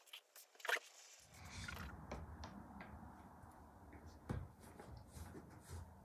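Faint handling sounds: a few light clicks and knocks as the screw cap of a plastic jug is twisted, over a low steady rumble that comes in about a second in.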